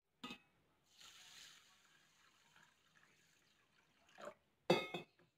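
Water poured from a steel vessel into a bowl of rice, a soft trickle and splash. Short knocks come at the start and twice near the end, the last one the loudest, with a slight metallic ring.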